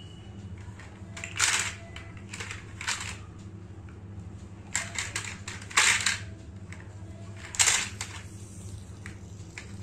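Plastic shape blocks clacking and rattling inside a plastic shape-sorter cube as it is handled and turned, about six short sharp clatters spread through, over a low steady hum.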